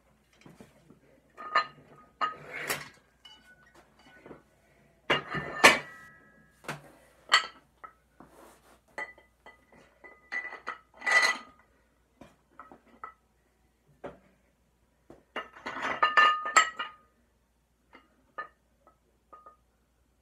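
Metal weight plates clanking and clinking against each other as they are lifted and stacked, in several irregular bunches of knocks, each with a short ringing tone; the loudest come about five to six seconds in and again around eleven and sixteen seconds in, with lighter ticks near the end.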